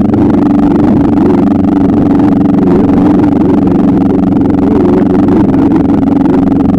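Motorcycle engine running at a steady speed, a constant drone with no change in revs.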